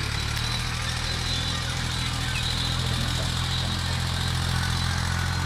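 An engine running steadily at idle: a low, even drone with no change in speed.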